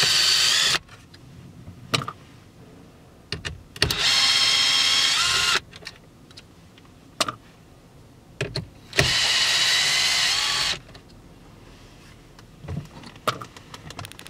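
Cordless drill/driver whining in three short runs of one to two seconds each as it backs out the car radio's mounting screws, with a few light clicks between the runs.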